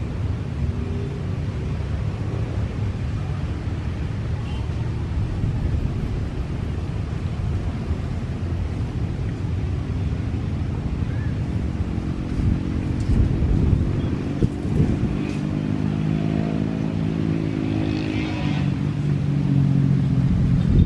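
Strong wind rumbling on the microphone; about halfway through, an engine hum with several pitched tones grows in and rises slightly in pitch.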